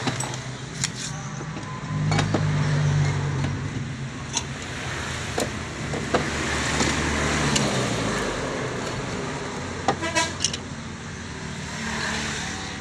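Engine running with a steady low hum, revved up about two seconds in and easing back down around eight seconds, with a few sharp clicks or knocks, the strongest cluster around ten seconds in.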